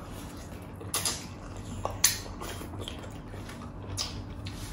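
Eating sounds from people eating with their hands: chewing and hands working food on plates. There are short sharp clicks or smacks about one, two and four seconds in.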